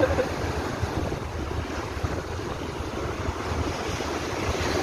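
Large lake waves washing onto the shore in a strong wind, with gusts buffeting the microphone into a low, uneven rumble.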